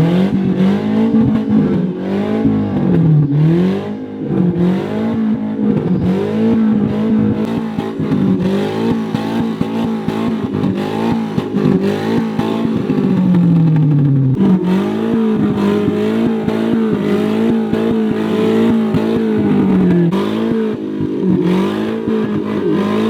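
Off-road 4x4 engine revving up and down over and over, its pitch repeatedly dropping and climbing back, with a brief dip about fourteen seconds in.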